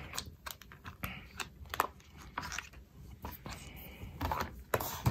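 Clear plastic photopolymer stamp being peeled from its carrier sheet and its clear plastic case handled: light, irregular crackles and clicks of plastic, with a louder clack near the end.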